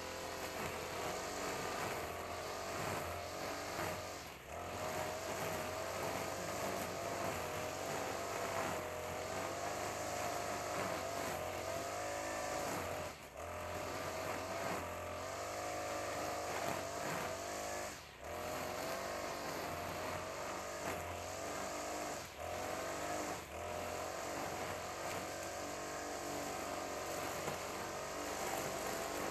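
Honda GX35 four-stroke brush cutter engine running at high speed while its line head cuts grass, the pitch wavering up and down. The sound dips briefly about five times.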